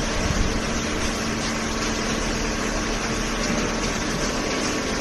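Hydraulic baler's power unit, an electric motor driving the hydraulic pump, running with a steady hum.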